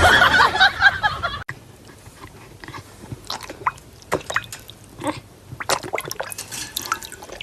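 A dog lapping and splashing water in a bowl: irregular wet clicks and splashes, some in quick clusters. It follows a loud, noisy stretch lasting about the first second and a half, which cuts off suddenly.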